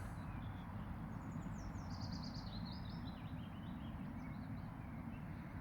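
A small songbird sings one phrase of short high notes that step down in pitch over about three seconds, over a steady hum of distant road traffic.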